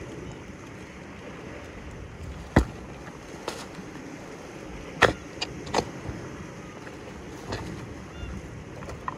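Steady wind and sea noise, broken by several sharp knocks and clunks of gear being handled close to the camera, the loudest about two and a half seconds in.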